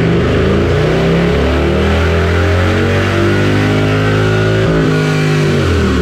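Harley-Davidson Fat Bob's 128 ci big-bore Milwaukee-8 V-twin, breathing through a Two Brothers 2-into-1 exhaust, revving up under load on a chassis dyno during tuning. Its pitch climbs steadily, with a brief break in the note a little before the end.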